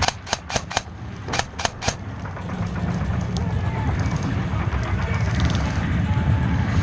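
Airsoft guns firing: a quick string of sharp single shots in two bursts in the first two seconds, four then three, followed by fainter rapid shots further off, over a steady low rumble.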